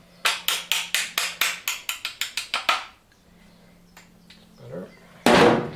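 A rapid run of about fifteen sharp knocks or taps, roughly five a second, lasting about two and a half seconds. Then a faint steady hum, and a single loud thump near the end.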